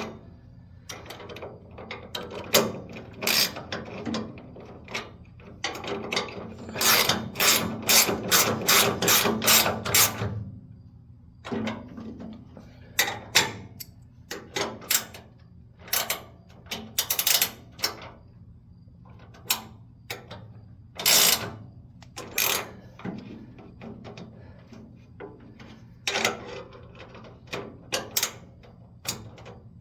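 Ratchet wrench clicking while working the nuts on a gas pedal assembly's mounting bracket: a long fast run of ratcheting clicks, then slower, separate clicks and strokes.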